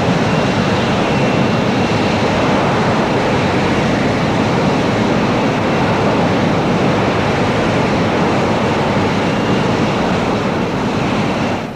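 Hawker P.1127 prototype's Pegasus vectored-thrust jet engine holding the aircraft in a hover: a loud, steady jet roar with a faint high whine, cutting off suddenly near the end.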